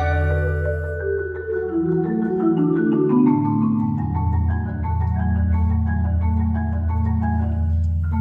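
Percussion ensemble of marimbas, xylophones and vibraphones playing, a line of mallet notes stepping downward over the first few seconds above sustained low notes that carry on throughout.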